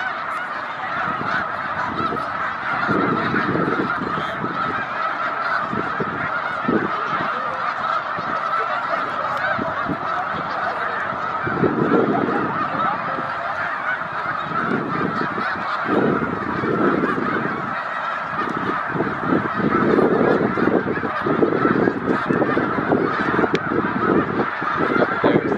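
A huge flock of snow geese calling together: a dense, unbroken chorus of overlapping honks. A low rumble swells and fades several times underneath.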